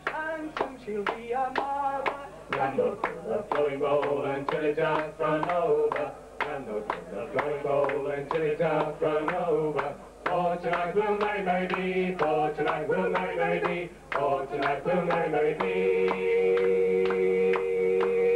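Live folk band singing in harmony, male and female voices together over a steady beat. Near the end the music settles into a long held chord.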